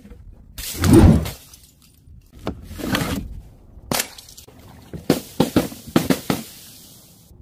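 Objects dropped from a height crashing onto paving one after another: a heavy thud about a second in, another crash near three seconds, a sharp crack, then a quick run of sharp smacks and pops in the last two and a half seconds.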